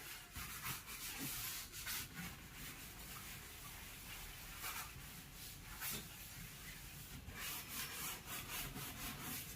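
A refrigerator's outer surface being scrubbed with soap: a faint series of short, irregular rubbing strokes.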